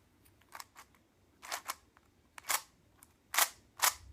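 Mix-Up Cube puzzle's layers clicking and clacking as they are twisted: about eight short sharp clicks at uneven intervals.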